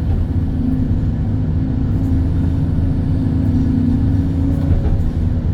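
Excavator's diesel engine running steadily. A steady higher hum rides over the low drone from about half a second in until just before the end.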